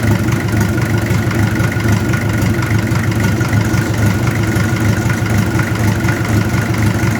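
Mitsubishi PS100 diesel engine running steadily at constant speed during a test run, its new automatic throttle holding it even.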